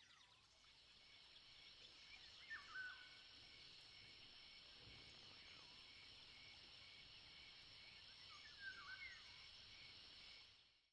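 Faint jungle ambience: a steady high insect drone with a few short, swooping bird calls, about two and a half seconds in and again near nine seconds, fading out near the end.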